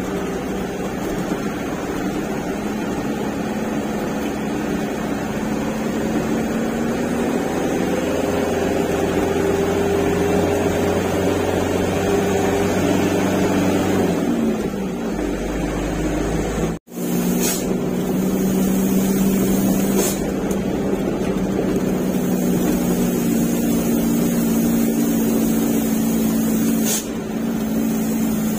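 Truck engine running under load, its pitch climbing slowly and then falling away about halfway through. After a brief cut-out it runs on steadily, with a few short, sharp knocks.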